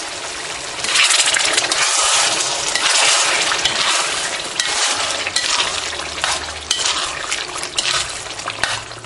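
Pumpkin halwa sizzling in hot oil in a wok while a metal slotted spoon stirs crumbled paneer into it, scraping and clinking against the pan. The sizzle grows louder about a second in, when the stirring starts.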